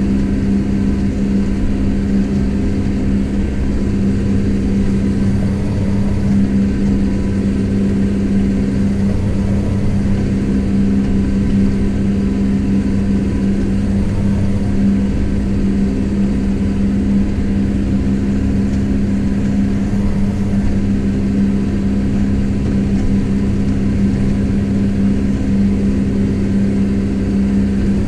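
Kubota M7172 tractor's four-cylinder turbo-diesel engine running at a steady pitch under load, pulling a plough, heard from inside the cab.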